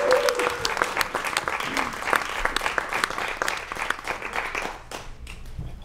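Theatre audience applauding as a dance section ends in blackout, the clapping thinning out and dying away about five seconds in.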